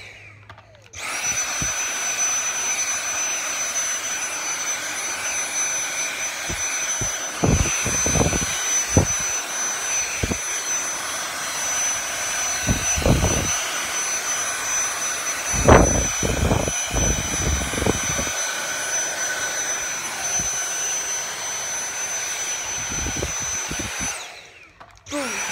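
Dyson cordless stick vacuum switched on about a second in, spinning up and running steadily with a high whine, then cut off about a second before the end and started again right at the close. Several dull knocks sound during the middle of the run.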